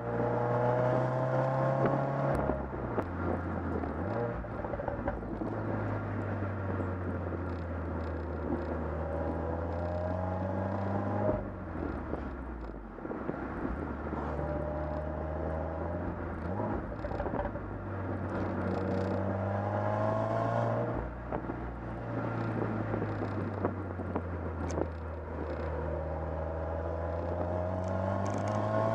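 Exhaust of a 2015 Subaru WRX's turbocharged 2.0-litre boxer four, heard from the rear of the car while driving. The revs climb slowly and then fall away sharply, three times, as the car pulls, shifts or lifts off.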